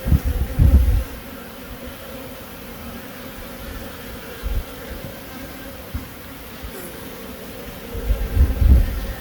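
Honey bees buzzing in a steady hum, with bursts of low rumble in the first second and again near the end.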